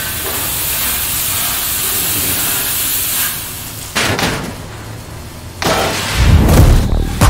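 Sound-design intro: a steady hiss of cutting sparks for about three seconds, then a sharp swoosh about four seconds in, another near six seconds, and a deep boom just after six seconds that is the loudest part.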